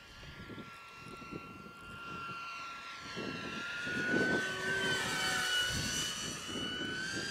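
Electric ducted fan of a radio-controlled model jet whining steadily in flight, growing louder as the jet comes closer and peaking about four seconds in.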